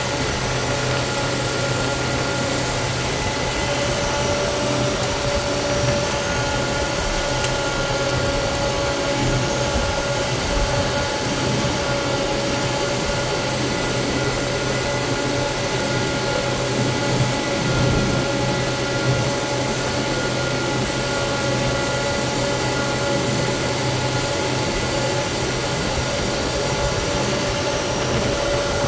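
Steady cockpit noise of a KC-135R Stratotanker on the ground: its four CFM56 (F108) turbofan engines running with a constant whine over an even rushing hiss of air.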